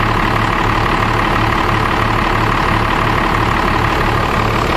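Dodge Ram's 12-valve Cummins 5.9-litre inline-six diesel idling with an even low beat, heard close to the open engine bay. It is running smoothly.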